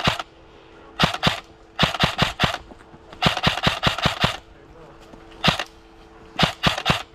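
Airsoft gun firing in short rapid bursts of sharp cracks, from a single shot up to about seven in a row, with brief gaps between bursts.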